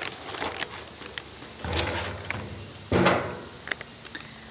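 Crinkling and rustling of foil and plastic food pouches as hot cookie packets are pulled out of a self-heating meal bag with tongs. There is a steady crackle of small clicks, and two louder rustles come about two and three seconds in.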